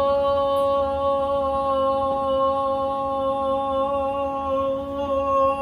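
A woman's voice holding one long sung note at a steady pitch.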